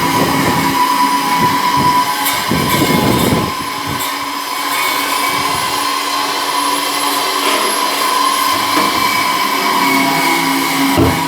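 Screw press-separator running while it processes sawdust: a steady mechanical hum with a constant whine. A brief louder rushing noise comes about three seconds in.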